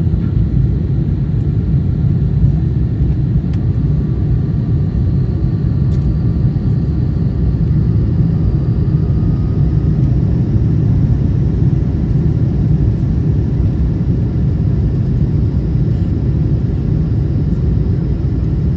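Cabin noise inside a Boeing 747-8 on final approach with flaps extended: a steady low rumble of airflow and engines, with a faint high engine whine that rises slowly.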